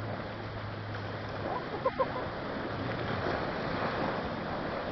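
Steady rushing noise of wind and creek water, with two short clicks about two seconds in.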